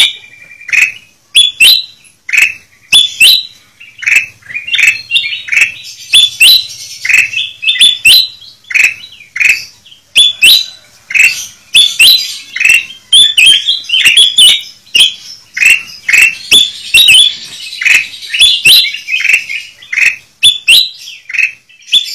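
A flock of kutilang emas (ruby-throated bulbuls) calling in a dense, busy chorus of short, sharp chirps and quick rising notes that overlap almost without pause. It is a lure recording for drawing wild bulbuls in.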